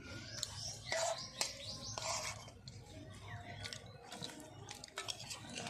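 Small birds chirping and twittering in the background, with a few sharp clicks about a second in.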